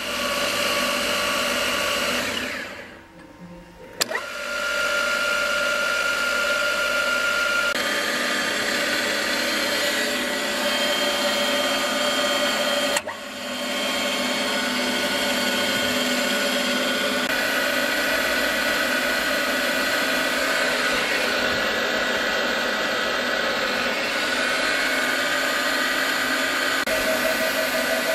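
Drilling and milling machine running with a steady motor-and-gear whine. It drops away briefly a couple of seconds in and comes back, then shifts pitch in several steps.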